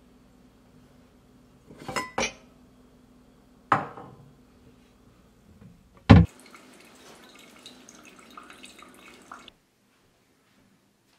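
Kitchen dishes clinking as a mug is taken from the cabinet: two quick clinks, another about four seconds in and a loud knock about six seconds in. Then about three seconds of liquid being poured, ending abruptly.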